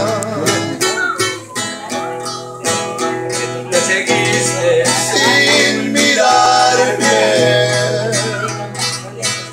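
Acoustic guitar strummed in a steady rhythm, with a held, wavering melody line above it.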